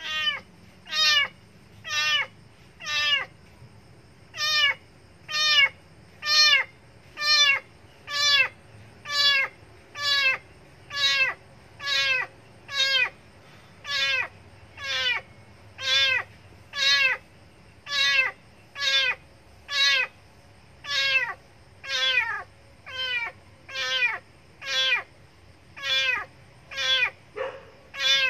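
Kitten meowing loudly and over and over, about one cry a second, each cry falling in pitch: the distress crying of an abandoned kitten, which the uploader puts down to hunger and pain.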